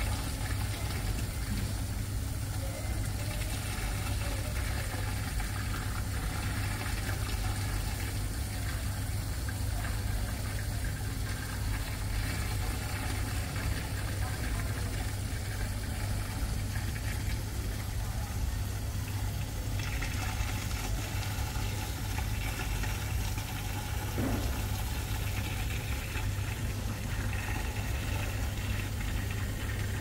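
Steady low hum of a large indoor atrium's room ambience, with a faint murmur of distant voices.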